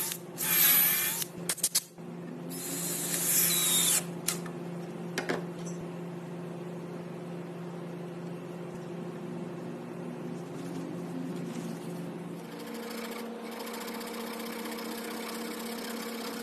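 A power tool's motor running with a steady hum, with several short loud bursts of hissing noise in the first four seconds. About twelve seconds in, the hum shifts to a higher pitch.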